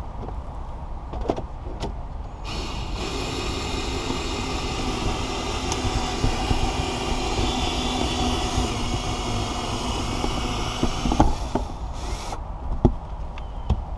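Cordless power cutting tool running steadily for about ten seconds as it cuts through the urethane adhesive holding a windshield. It starts a couple of seconds in and cuts off suddenly near the end, followed by a few sharp clicks.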